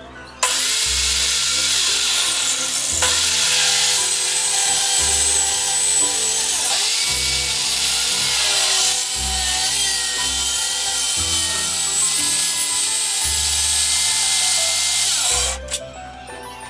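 A power tool running and cutting into wood in one long continuous pass. It starts abruptly just after the start and stops abruptly near the end.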